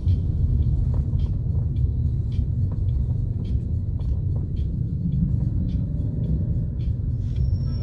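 Steady low rumble of a moving car heard from inside the cabin, with a faint ticking about three times a second over it.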